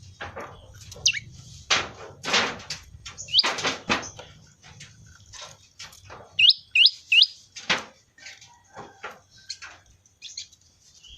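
Prinia calling: a series of short, harsh, scratchy notes mixed with clear swooping whistles, including a run of three quick whistles about two-thirds of the way through.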